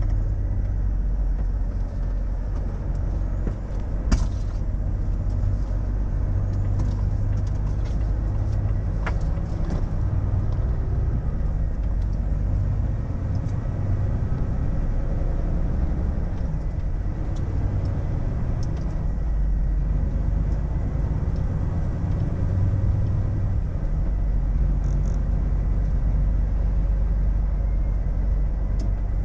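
Volvo FH truck driving slowly, heard from inside the cab: a steady low engine and road drone, with a sharp knock about four seconds in and a fainter one about nine seconds in.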